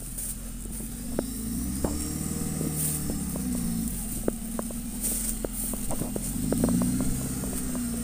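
Off-road vehicle's engine running as it wades through a river, revving up and falling back twice, with scattered sharp clicks. The engine is still running and has not stalled in the water.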